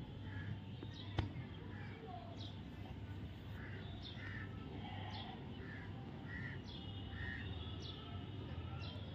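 Small birds chirping in the background, short falling chirps about once a second, over a steady low hum. A single sharp click comes a little over a second in.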